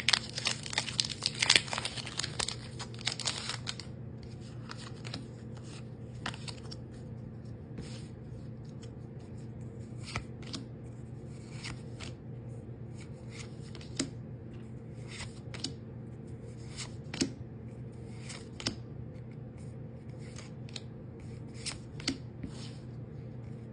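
Foil trading-card booster pack crinkling for the first few seconds, then Pokémon cards being slid and flipped through one at a time, giving short scattered flicks.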